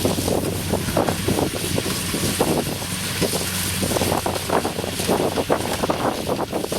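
Kubota DC60 combine harvester running with a steady engine hum, and wind buffeting the microphone in irregular gusts.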